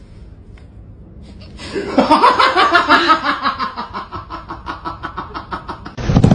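Laughter: a long run of quick, rhythmic ha-ha pulses that starts loud and gradually tapers off. Near the end a louder, lower sound cuts in abruptly.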